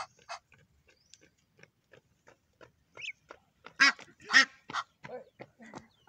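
Egyptian goose goslings pecking birdseed off paving stones, a run of small taps about three a second. There is a thin rising peep about three seconds in, and two loud, harsh goose calls in quick succession about four seconds in.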